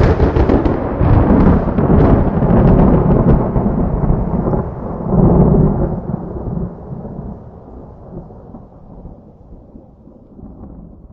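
Close lightning strike and thunderclap: a sudden sharp crackling crack, then a deep rolling rumble that swells again about five seconds in and slowly fades away.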